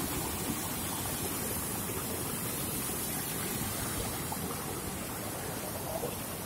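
Steady rush of muddy floodwater pouring across a road.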